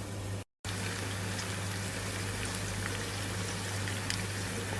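Food cooking in a hot pot on the stove: a steady, even sizzling and bubbling with a low hum underneath. The sound cuts out completely for a moment about half a second in.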